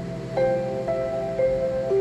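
Background music: a slow melody of held notes, a new note about every half second.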